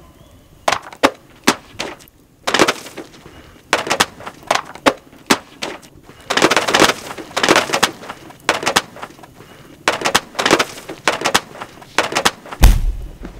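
Books and paper burning in a fire pit: irregular crackling and popping, with sharp snaps and short rushing flares of flame. A single deep thump comes near the end.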